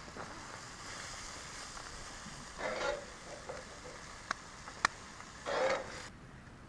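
A trout frying in melted butter in a pan, with a steady sizzle that fades near the end. Two short scrapes and two sharp clicks sound midway.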